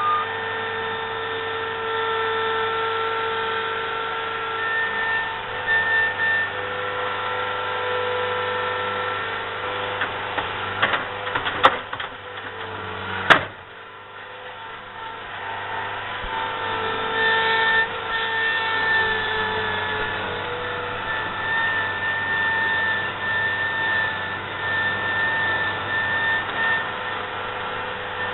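Compact construction machine's diesel engine and hydraulics running steadily, with a whine of several held tones. Two sharp knocks come about twelve and thirteen seconds in.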